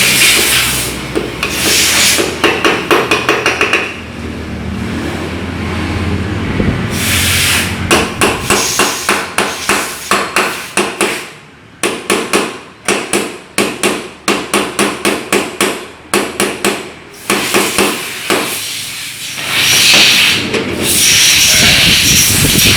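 Steel hammer blows on metal in quick runs of about three strikes a second, driving the bearings of a Suzuki Nex scooter's CVT gearbox. A loud rushing hiss comes in at the start and again near the end.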